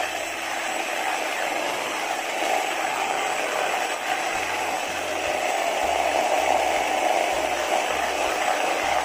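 Electric hand mixer running steadily, its twin beaters whipping instant coffee, sugar and hot water into stiff dalgona foam in a plastic bowl.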